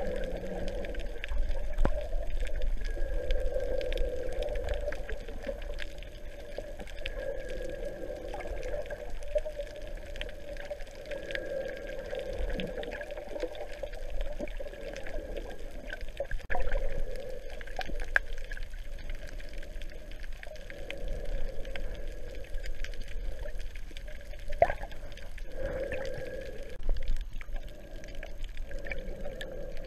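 Muffled underwater water noise recorded through a GoPro's waterproof housing: sloshing and gurgling, with scattered small clicks.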